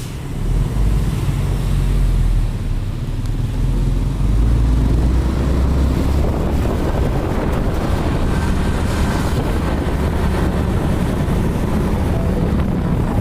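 Heavy truck engine rumbling close by, with wind buffeting the microphone. The rumble swells about half a second in and holds steady and loud from about four seconds on.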